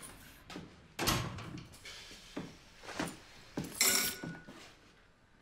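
A door shutting with a thud about a second in, then a series of footsteps, small knocks and rustles in a small hallway.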